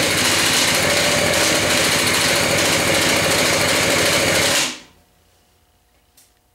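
Old two-stroke moped engine being started with a drill: a loud, steady, fast-pulsing buzz that cuts off a little under five seconds in.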